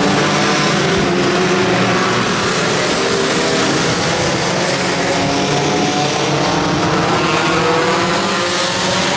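Several touring race cars running along a wet track at once, their engines sounding together at shifting pitches over a steady hiss of tyres on wet tarmac.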